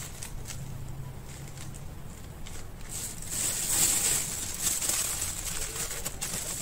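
Thin plastic bags full of bait crinkling and rustling as hands tie off one bag and lift and twist the neck of another, loudest for a couple of seconds in the middle.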